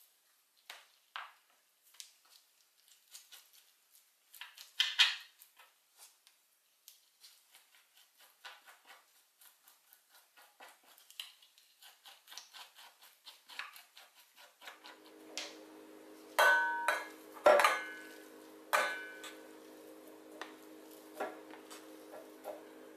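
A metal spoon scraping the flesh off a raw Spanish mackerel fillet on a cutting board: a run of soft, irregular scrapes and ticks. About two-thirds of the way in, a steady low hum starts and a metal bowl clanks loudly three times against a stainless-steel mixer bowl, ringing, as the fish paste is scraped in.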